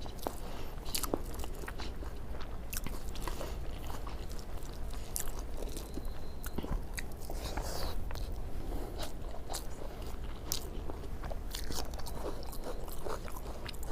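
A person eating egg curry, fish and rice close to the microphone: chewing with irregular wet mouth smacks and clicks, over a steady low hum.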